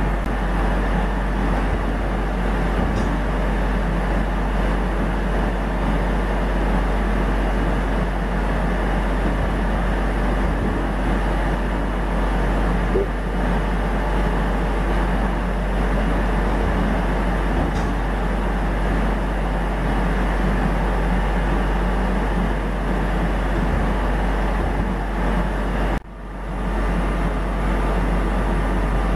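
Gildemeister CTX 420 linear twin-spindle CNC lathe running, a steady dense mix of low machine hum and coolant-spray hiss. Near the end the sound drops out briefly and swells back.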